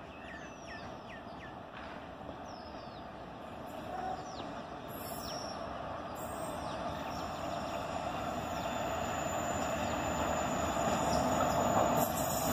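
An approaching WAP4 electric locomotive hauling passenger coaches: a steady rumble that grows louder as the train nears. A bird chirps several times in the first few seconds.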